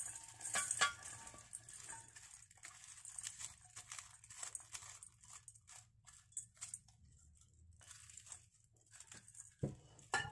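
Chopped garlic, shallots and herbs pushed by hand out of a ceramic bowl into a stainless steel bowl: soft, irregular scraping and rustling with scattered small clinks, and two sharper knocks near the end.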